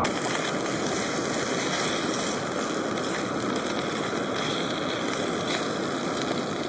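Bacon sizzling in a frying pan on a camping stove: a steady crackling hiss.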